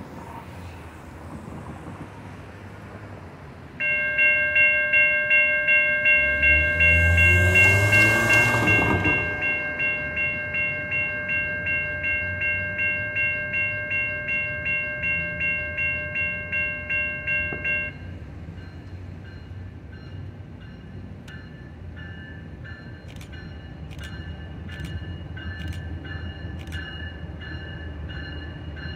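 Railroad grade-crossing bell ringing about twice a second, then stopping. A car passes partway through. After the bell stops, an approaching CSX freight locomotive's horn sounds, getting gradually louder.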